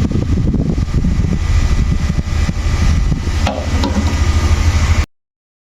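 Small 12 V DC fan running on the power supply's output, a steady low rumbling whir that cuts off suddenly about five seconds in.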